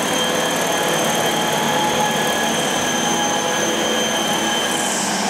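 Radio-controlled model helicopter hovering low, its motor and main and tail rotors giving a steady high whine over a rush of rotor wash, echoing in a large hall. It is being test-flown with one rotor blade not straight, which the owner says keeps it from flying properly.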